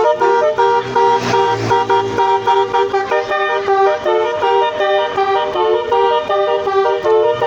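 Bus telolet horn, a Basuri-type multi-tone musical air horn, playing a quick tune of short toots that step between several pitches. A short burst of noise about a second in.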